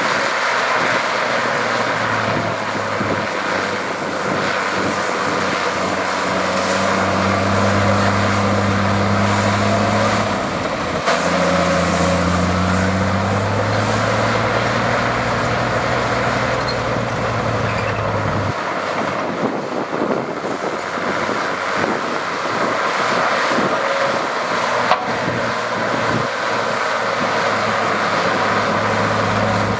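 Heavy diesel engine of earthmoving machinery running under load. The engine note rises and holds from about a quarter of the way in, then drops back to a steadier drone a little past halfway. There is a single sharp click near the end.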